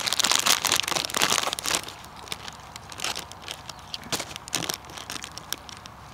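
Packaging crinkling and crackling, thick for about the first two seconds and then dropping to scattered crackles.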